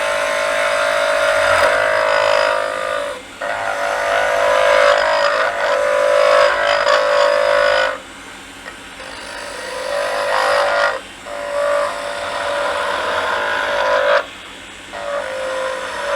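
Turning tool cutting a spinning cherry blank on a wood lathe, a steady pitched hiss of the cut, in several passes with the tool lifting off the wood briefly about 3, 8, 11 and 14 seconds in.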